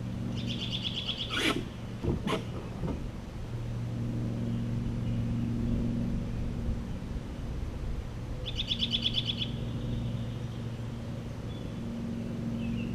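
A bird calling twice, each call a fast trill about a second long, some eight seconds apart, over a steady low hum. Two brief knocks come just after the first trill.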